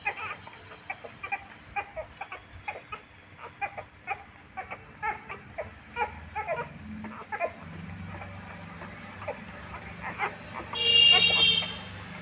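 Puppies squeaking and whimpering in quick, short high-pitched calls while nursing from their mother, with one louder, longer squeal near the end.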